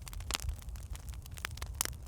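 Firewood burning in a fireplace, crackling with irregular sharp pops and snaps over a steady low rumble. The loudest snaps come about a third of a second in and again near the end.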